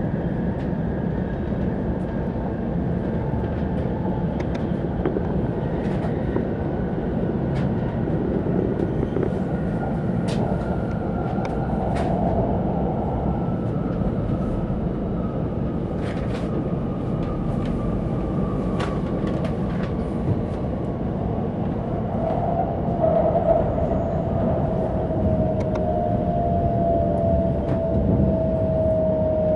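Cabin noise inside a Kyushu Shinkansen train running on elevated track: a steady rumble with a thin electric whine from the drive gliding slowly down in pitch as the train slows for its station stop, a second lower whine appearing near the end, and a few faint clicks.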